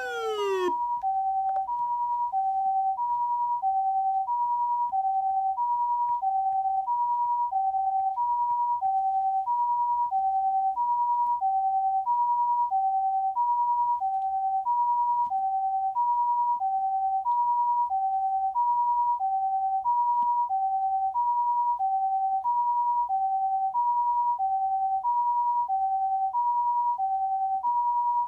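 Osaka Siren OPS-5101V-Q ambulance siren amplifier sounding the Japanese ambulance two-tone hi-lo siren: a high note and a lower note alternating steadily, each pair lasting a little over a second. A falling siren sweep fades out in the first second.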